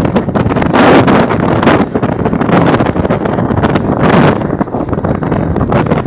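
Wind buffeting the microphone of a moving motorcycle on a dirt road, with the bike's engine and tyre noise underneath. Louder gusts about a second in and about four seconds in.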